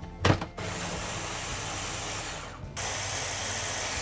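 Electric blender with its motor head on top of the jug, blending cooked tomatillos, water and coriander into salsa verde. There is a click at the start, then the motor runs steadily for about two seconds, stops briefly near the three-second mark, and runs again in a second pulse.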